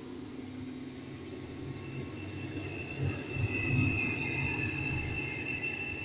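A surround-sound test clip playing through homemade 5.1 speakers, heard in the room: a low vehicle-like rumble that swells about halfway through and then fades, with a steady high whistling tone over it.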